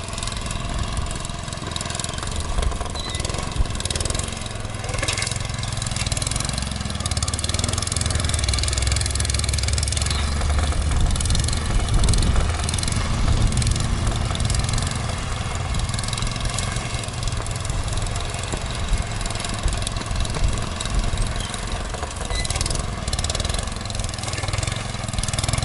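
A 1975 Sears garden tractor's small engine running steadily while it clears snow, with wind noise on the microphone.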